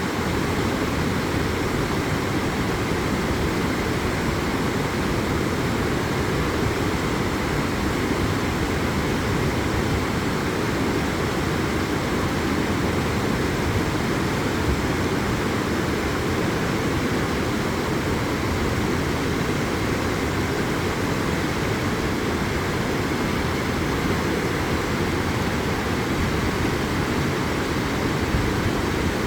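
Waterfall roaring, a steady, unbroken rush of falling water that stays even throughout.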